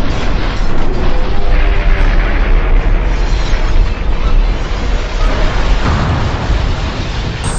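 Explosion sound effect: a loud, long rumble that slowly fades toward the end.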